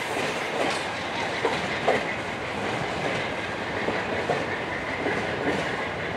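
A train of cabooses rolling along the track, its steel wheels clicking over the rail joints against a steady rumble.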